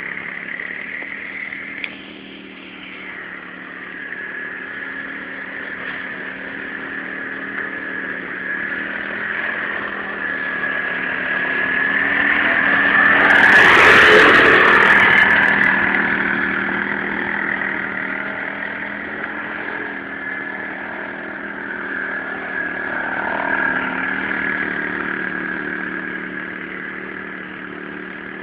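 A 150 cc quad bike's engine running steadily as it rides past, growing louder as it approaches, loudest when it passes close about halfway through, then fading as it moves away.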